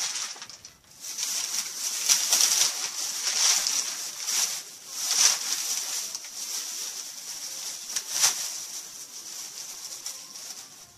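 Rustling and crinkling of packaging being handled, in irregular swells with sharper crackles about 5 and 8 seconds in.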